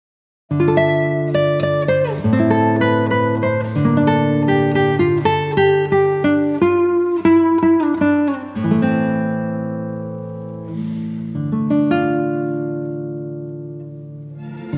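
Background music on acoustic guitar: plucked and strummed chords with a melody, starting about half a second in and fading before a new phrase near the end.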